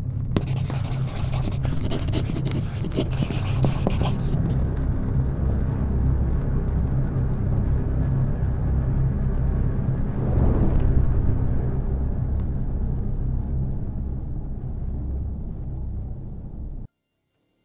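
Cinematic logo-intro sound design: a steady, deep low rumble, crackling over the first few seconds and swelling about ten seconds in, then cutting off suddenly near the end.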